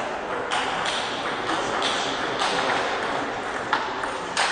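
Table tennis ball clicking off bats and the table in a serve and rally, sharp ticks about twice a second, over the murmur of a hall.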